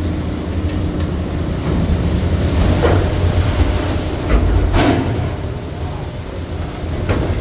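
Steady low rumble of a crab fishing boat's engine and deck machinery, with a couple of knocks or clanks about three and five seconds in.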